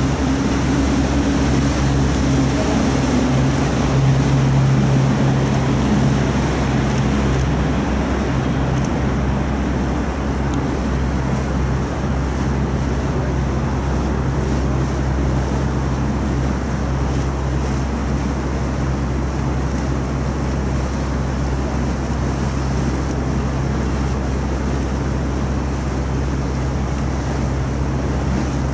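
River cruise boat underway: a steady engine drone with the rush of water and wind. A low humming tone is stronger in the first eight seconds or so, then settles back into the drone.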